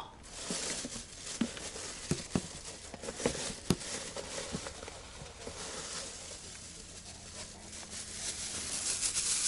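Rustling and crinkling with a handful of light knocks and clicks, mostly in the first few seconds, as food and utensils are handled.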